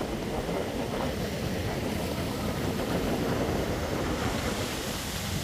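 Steady rushing of stormy wind and rough water, with wind buffeting the microphone.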